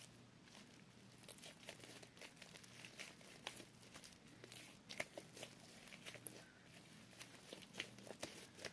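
Sticky homemade glue-and-detergent slime being kneaded by hand: faint, irregular small crackles and sticky pops. The slime is still too sticky and has not yet come together.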